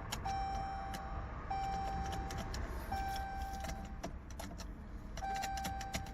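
2016 Chrysler 300's electronic warning chime, a steady tone of about a second repeating four times with gaps of a second or more, over scattered sharp clicks. It sounds while the car cannot be switched off.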